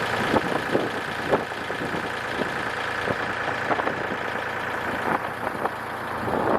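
An engine running steadily, with scattered light clicks and knocks over it.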